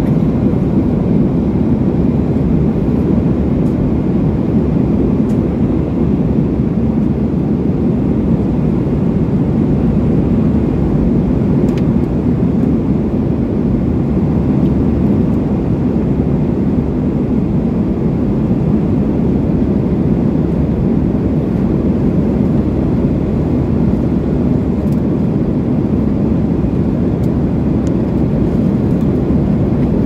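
Steady roar of an airliner's jet engines and rushing air, heard inside the passenger cabin in flight.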